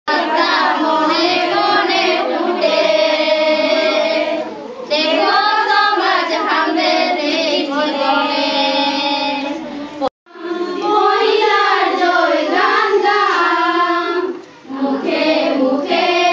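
A group of girls singing a song together in unison, with held notes. The sound cuts out for a moment about ten seconds in.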